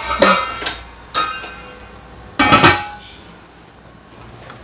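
Stainless steel pots and lids clanking against each other as one is taken down from a hanging rack: three metallic clanks over about three seconds, each with a short ring.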